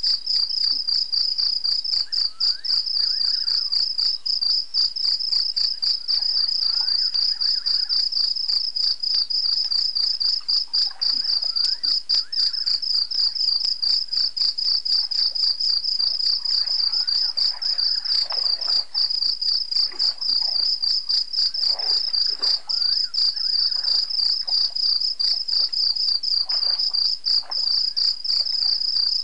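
Chorus of crickets: a loud, continuous high trill pulsing rapidly, with fainter chirping calls underneath, busiest in the second half.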